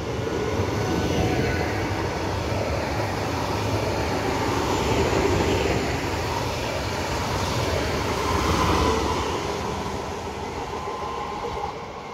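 Stadler FLIRT electric multiple unit pulling out and accelerating past: the steady rumble of wheels on rail with a faint electric motor whine. The sound fades away near the end as the train leaves.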